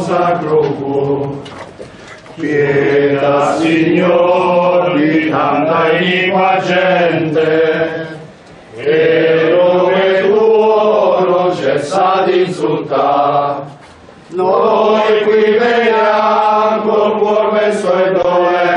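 A group of men singing a devotional chant in unison as they walk, in phrases of about six seconds separated by brief pauses.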